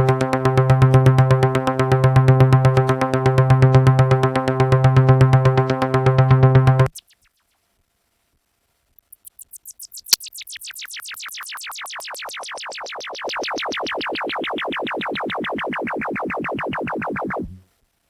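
Dave Smith Mopho analog synthesizer playing two preset sounds. First comes a low, buzzy held note that throbs slowly and stops about seven seconds in. After a short silence comes a fast-pulsing tone that starts bright and slowly gets duller as the filter closes, cutting off near the end.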